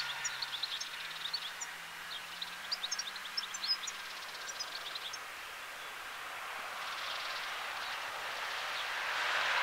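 Small birds chirping in quick, high notes through the first half. From about seven seconds in, the rushing jet noise of a Boeing 757 freighter rolling out on the runway after landing grows steadily louder.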